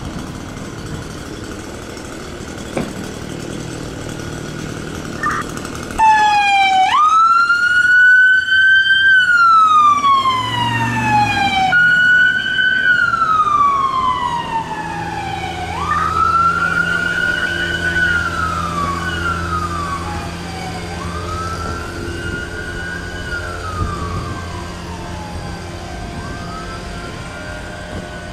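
Electronic siren on a 2022 Ford F350 fire department vehicle. It starts suddenly about six seconds in as the truck pulls out, then winds up and down in a slow wail every four to five seconds, growing fainter as the truck drives away. Before the siren there is a low steady hum, the truck's engine running in the bay.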